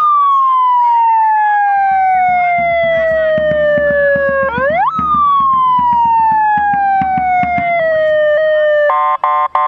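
Emergency vehicle siren wailing loudly: the tone sweeps up quickly and then falls slowly over about four seconds, twice. Near the end it switches to a fast pulsing tone.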